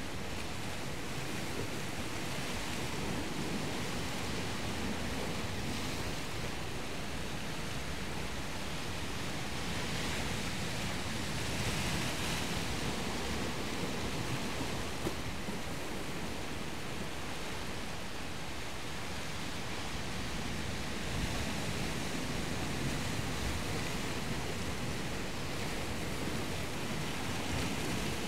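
Steady wash of surf, a continuous rushing noise that swells a little now and then.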